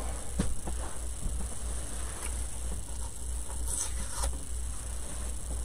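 Light handling noises of someone rummaging for a roll of tape, with a short rustle near the four-second mark, over a steady low hum.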